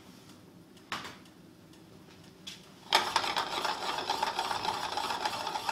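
A stainless sauté pan worked back and forth on the hot plate of a solid-top range. It is quiet at first, with a sharp knock about a second in. About three seconds in a steady, rough scraping starts and continues, metal rubbing on metal as the pan moves.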